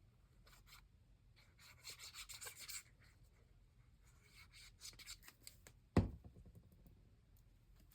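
Paper being rubbed and pressed down onto a glued journal page, in scratchy bursts about two seconds in and lighter rustles later, then a single sharp knock about six seconds in.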